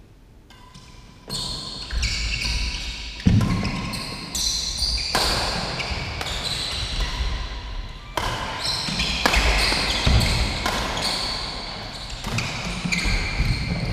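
A doubles badminton rally on an indoor court: racket strikes on the shuttlecock, running footsteps thudding on the court floor, and short high squeaks from shoes. It starts about a second in.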